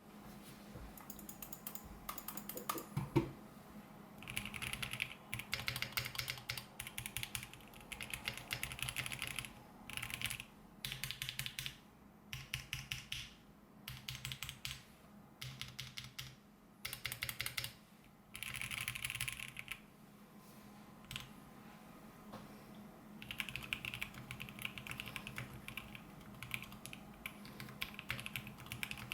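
Custom Voice65 mechanical keyboard being typed on: lubed Alpaca linear switches on a polycarbonate plate under PBT keycaps, in fast bursts of keystrokes separated by short pauses, with one louder knock about three seconds in.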